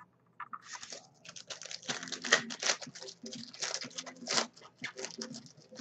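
Crinkling and tearing of a foil trading-card pack wrapper being opened, a dense run of irregular crackles that starts about half a second in.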